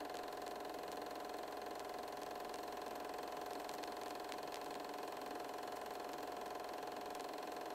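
A steady machine-like hum made of several held tones, with faint scattered clicks and crackles over it.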